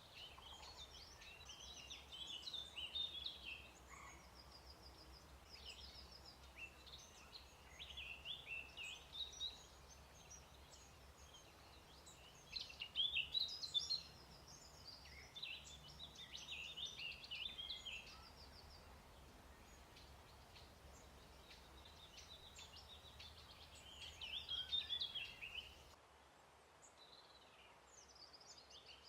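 Songbirds singing: bursts of quick chattering, warbling notes and short trills repeated every few seconds, over a faint low rumble that drops out near the end.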